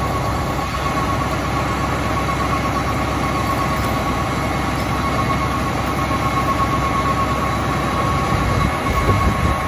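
Tiller ladder fire truck's engine running steadily at idle, a continuous low rumble with a thin steady high whine over it.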